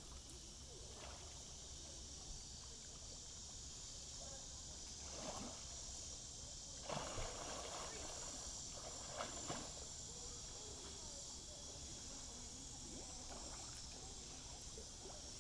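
Faint splashing and sloshing of a swimmer's breaststrokes in shallow water, with a few slightly louder splashes around the middle.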